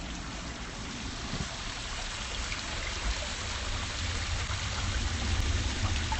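Small woodland stream rushing over rocks and a little waterfall: a steady hiss of running water. A low rumble underneath grows stronger in the second half.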